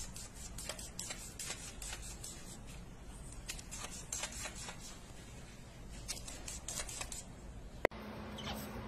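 Faint scattered clicks and rustles of handling noise as a pet's fur brushes against a phone's microphone, with one sharp click near the end.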